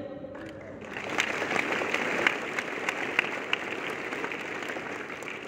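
Audience applauding: many hands clapping, building over the first second and tapering off near the end.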